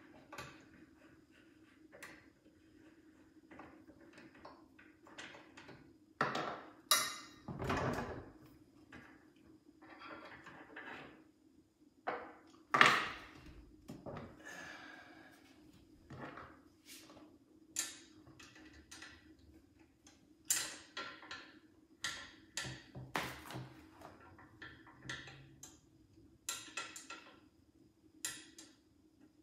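Irregular metal clicks, taps and scrapes as an Allen key works the bolts and the metal arm of a Rockymounts Tomahawk bike rack is handled and shifted on a wooden table. There are a few louder clunks, the loudest about 13 seconds in, over a faint steady hum.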